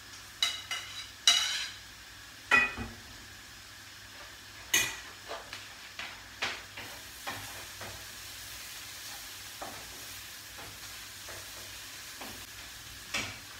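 Metal bowls clanking at the sink, a few sharp ringing knocks in the first five seconds. Then a frying pan of vegetables sizzles softly on the stove while it is stirred, with light scraping clicks.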